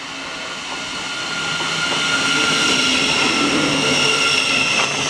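Siemens Class 700 Desiro City electric multiple unit pulling into the platform to stop. It grows louder as it nears, then runs steadily past with a high steady whine.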